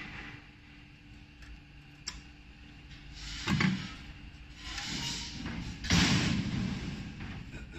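HSM-50 butt welding machine for copper and aluminium wire in operation. A sharp click comes first. Then two short, loud, noisy bursts about two and a half seconds apart; the second is the longer and fades out.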